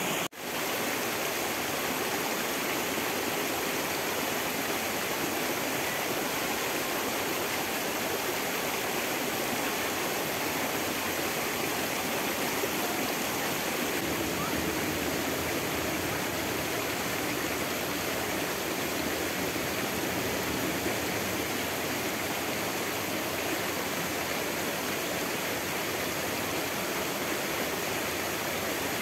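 Flowing water rushing steadily, an even unbroken sound of a stream or cascade.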